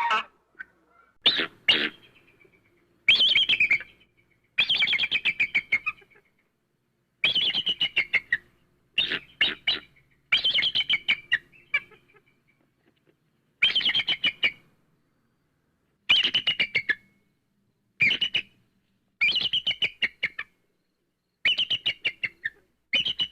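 A bird calling in repeated bursts of rapid chirping notes, about a dozen short phrases each lasting around a second, with brief pauses between them.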